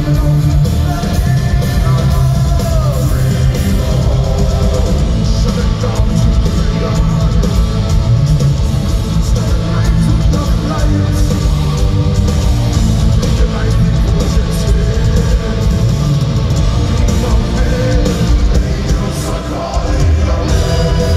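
Live heavy metal band playing at full volume, with distorted guitars, drums and amplified cellos under a singing voice, heard from the crowd in a large arena hall.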